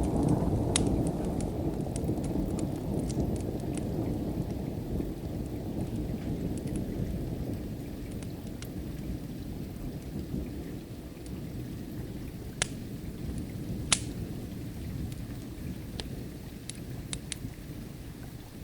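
A low rumble of thunder, loudest at the start and slowly fading away, over steady rain. Sharp pops from a crackling wood fire come through now and then, two louder ones in the second half.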